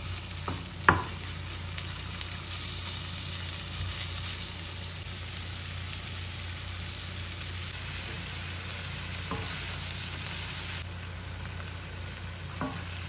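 Lamb heart, kidneys and onion frying in lamb fat and ghee in a pan, a steady sizzle with a few short sharp clicks: one about a second in, then near the middle and near the end.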